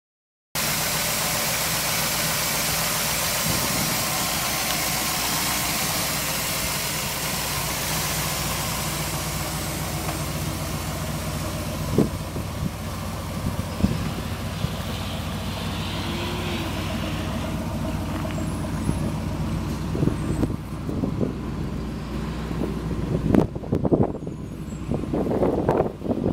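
1982 Chevrolet K5 Blazer's 454 big-block V8 idling steadily. From about two-thirds of the way in, gusts of wind and bumps hit the microphone over it.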